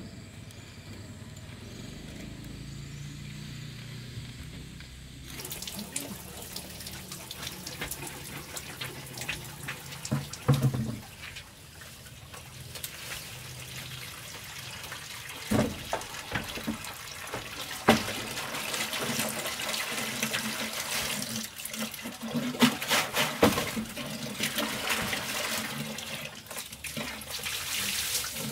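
Water running and splashing steadily from a bamboo pipe onto wooden floorboards and into a plastic bucket, starting about five seconds in after a quieter stretch. A few sharp knocks from the bucket and basket being handled break through it.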